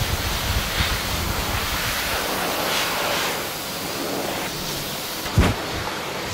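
High-velocity dog dryer blowing a steady rush of air through its hose onto a wet dog's coat. Two short low thumps come near the end.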